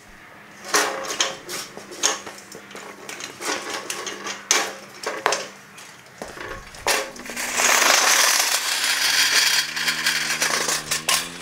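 Steel welding cart rolling on its rubber wheels across concrete, with clanks and rattles of the frame and footsteps. About two-thirds of the way through it gives way to a loud, steady crunching of the wheels and boots on a dirt and gravel road.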